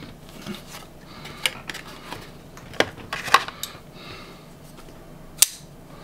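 Hands rummaging for and handling a pocket knife: scattered light clicks and knocks over faint rustling, with the sharpest click about five and a half seconds in.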